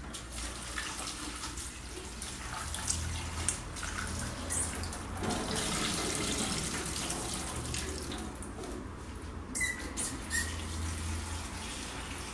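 Kitchen tap running into a stainless steel sink as chopped potatoes are rinsed and drained in a saucepan and the pan is filled, with a few light knocks of the pan and lid.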